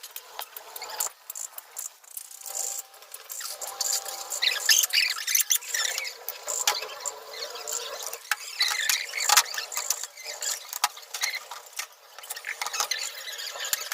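Hand work on a car shock absorber: an irregular run of sharp metal clicks, taps and knocks mixed with short squeaks.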